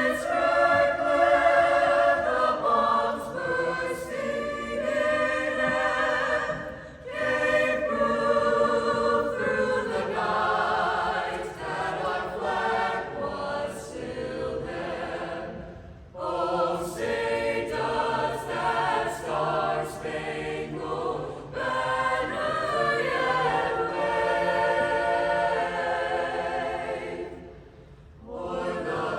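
Choir singing the national anthem in sustained, many-voiced phrases, with short breaks between phrases about seven, sixteen and twenty-eight seconds in.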